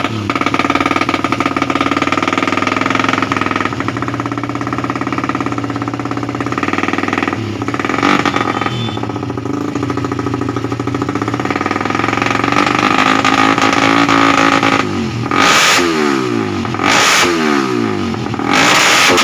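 Motorcycle engine running at a steady speed, then revved hard three times near the end, its pitch falling away after each rev.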